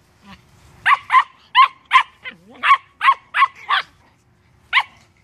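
Puppy yapping in short, high-pitched barks while play-fighting with another puppy: a quick run of about nine yaps, then one more near the end.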